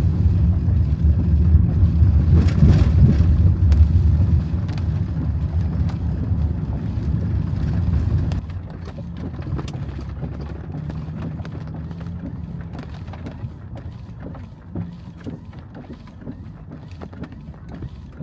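Vehicle driving: a loud, steady low rumble that drops suddenly to a quieter rumble about eight seconds in, with scattered small ticks after that.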